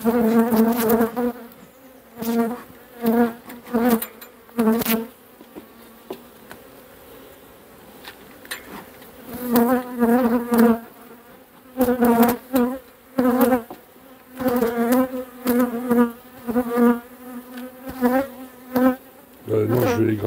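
Honeybees buzzing around an open hive: bee after bee flies close by, each pass a short buzz with a wavering pitch. There is a quieter stretch of a few seconds in the middle.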